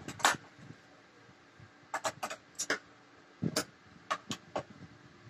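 Cotton cloth rustling and swishing in a string of short, irregular bursts as a kurti is picked up and rearranged by hand.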